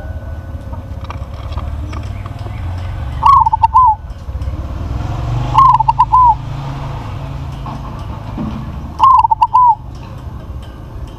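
Local Indonesian zebra dove (perkutut) cooing: three song phrases a few seconds apart, each a rising first note followed by a quick run of three or four notes, over a low steady rumble.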